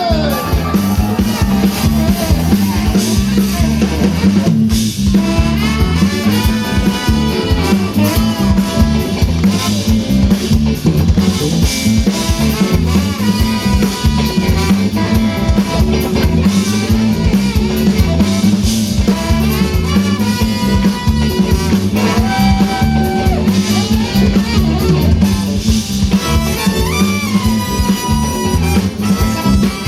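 Live brass band playing through a PA: horn lines over a drum kit and bass with a steady beat.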